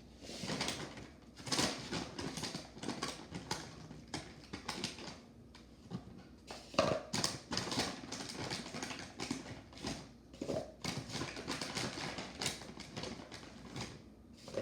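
Handling and dropping unwrapped Kit Kat mini bars into a cup: irregular clicks, taps and rustling.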